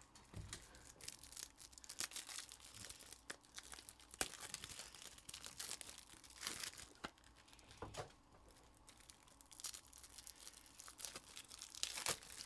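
Thin plastic wrapping crinkling and tearing, with scattered light clicks and taps as trading cards and plastic card holders are handled.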